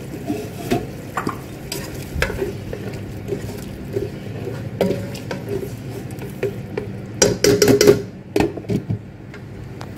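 Spatula stirring a wet sauté of chorizo and vegetables in an electric multi-cooker pot, scraping and knocking against the pot. About seven seconds in comes a short run of louder clattering as a glass lid is handled onto the pot.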